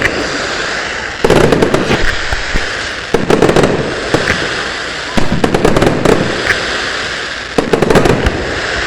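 Fireworks going off: clusters of sharp pops and bangs about every two seconds, over a continuous hiss.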